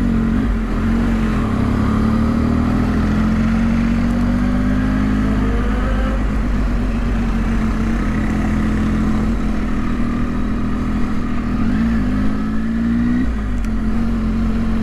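Triumph Tiger's three-cylinder engine running at low speed, heard from the saddle. Its pitch wavers and climbs as the bike pulls away, then drops sharply near the end.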